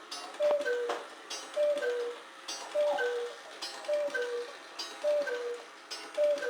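Cuckoo clock calling "cu-ckoo" over and over, a higher note then a lower one, about six calls roughly a second apart. A click of the mechanism comes before each call.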